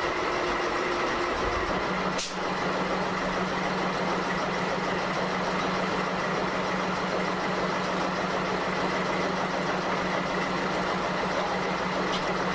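Diesel locomotive idling with a steady low hum and engine noise. A single sharp click comes about two seconds in.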